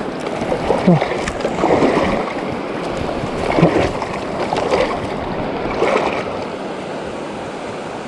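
River current rushing steadily, with louder short pulses about once a second through the first six seconds.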